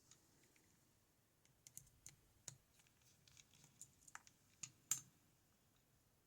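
Small metal lock parts and picking tools clicking and ticking as a high-pin-count pin-tumbler lock is taken apart by hand: a loose run of about a dozen short, sharp clicks, the loudest one about five seconds in.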